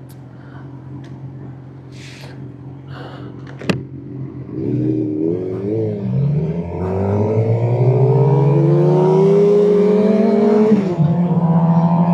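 600cc inline-four sportbike engine idling, with a sharp click about four seconds in, then revved unevenly and pulling away, its note climbing steadily for several seconds, dropping at an upshift near the end and climbing again.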